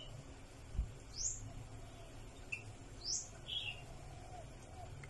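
Birds chirping: short, sharp chirps that sweep downward, one every two seconds or so, over a low steady hum. A soft low thump comes about a second in.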